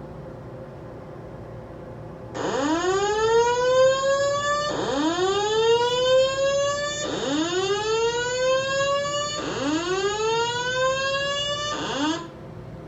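Building fire alarm's voice-evacuation sounder giving its slow-whoop evacuation tone: four loud rising whoops of about two and a half seconds each, starting a couple of seconds in, and the start of a fifth that cuts off near the end.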